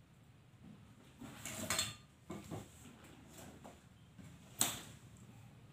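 Small metal parts clicking and clinking as they are handled, in scattered short knocks, with one sharp click about four and a half seconds in.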